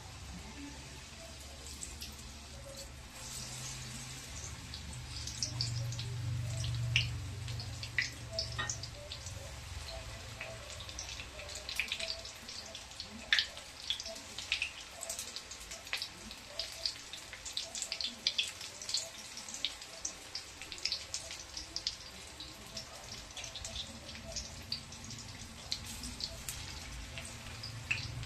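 Cauliflower pakoras deep-frying in hot oil, with a steady sizzle and frequent irregular crackles and pops.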